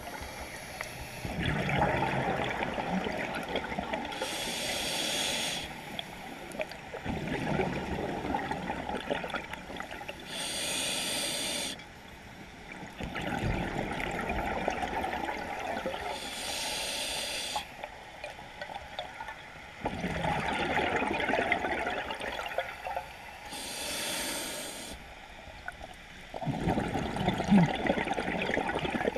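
Scuba diver breathing through an open-circuit regulator underwater: a short, high hiss from the demand valve on each inhale, then a long gurgling rush of exhaled bubbles. Four breaths, about six to seven seconds apart.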